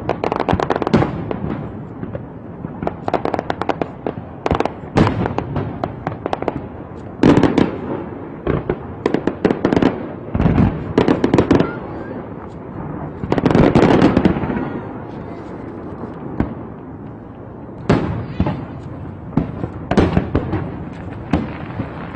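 Fireworks going off: rapid sharp reports and crackling in dense clusters, with the heaviest volleys about seven and fourteen seconds in.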